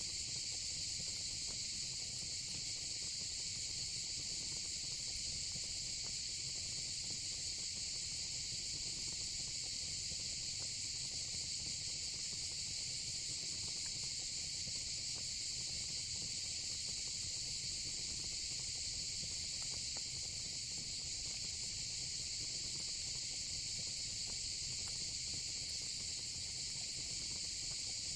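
Steady, unbroken chorus of night insects such as crickets, high-pitched and constant, over a low rumble with a few faint crackles from a wood fire.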